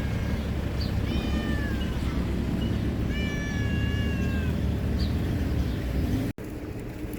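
A stray cat meowing twice, about a second in and again around three seconds in, the second call longer, over a steady low background rumble. The background cuts off abruptly near the end and resumes quieter.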